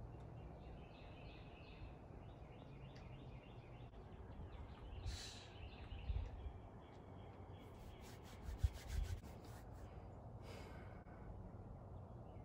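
Faint outdoor ambience: small birds chirping in a run of short high notes over the first few seconds, over a low steady rumble, with brief rushes of noise about five and ten seconds in.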